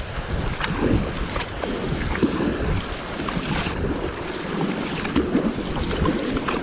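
Sea kayak paddling through choppy water: paddle blades splashing and water sloshing along the hull in irregular bursts, over wind buffeting the microphone.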